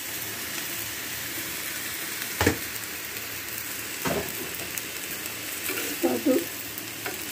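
Chopped water lily stems sizzling steadily as they fry in hot oil and spices in an iron wok, with a metal spatula knocking against the pan twice, about two and a half and four seconds in.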